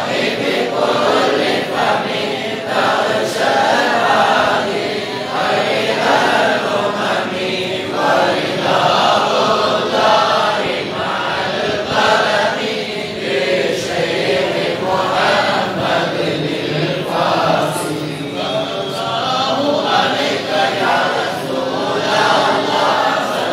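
A group of men chanting a Mawlid devotional chant together in unison, in phrases of a second or two that run on without a break.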